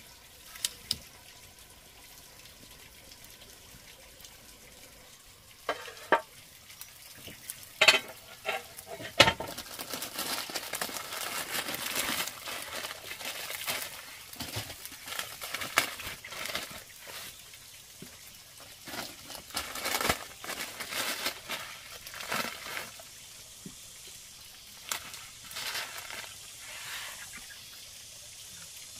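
Water splashing and running, with a few sharp knocks about six to nine seconds in.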